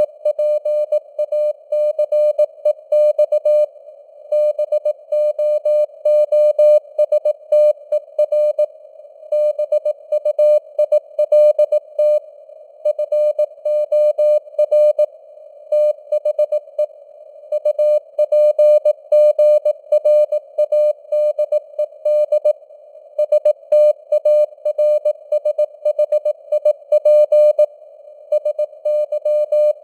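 Morse code sent at 18 words per minute: one steady mid-pitched tone keyed on and off in dots and dashes, with short pauses between words, over a faint hiss of simulated radio noise.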